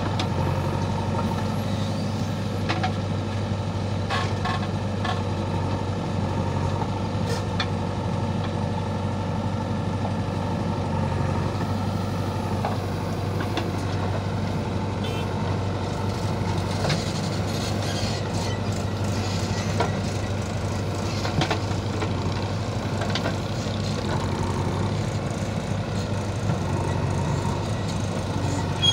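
JCB 3DX backhoe loader's diesel engine running steadily while the backhoe digs soil, with scattered clanks and knocks.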